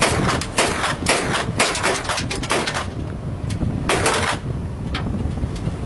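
Gunfire from the bow of a patrol boat: a rapid, irregular series of shots through the first three seconds and another burst about four seconds in. Under it runs a steady low rumble of the boat's engine and wind on the microphone.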